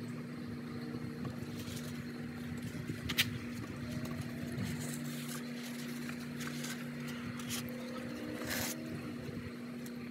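A steady low machine hum, like a motor running in the background, with a few faint clicks and a brief rustle about three quarters of the way through.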